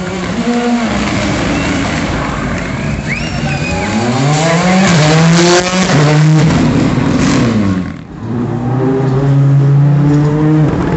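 Turbocharged four-cylinder engine of a World Rally Car revving hard. The pitch climbs and is held high, falls away about six or seven seconds in, then after a brief drop is held steady and high again near the end.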